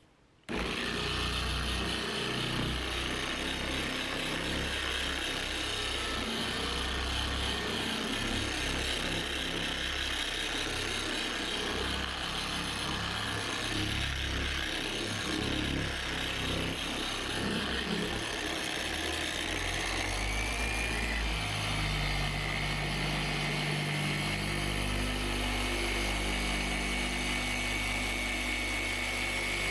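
Electric machine polisher switching on about half a second in and running steadily with a high whine as it works compound on car paint, its pitch shifting about two-thirds of the way through.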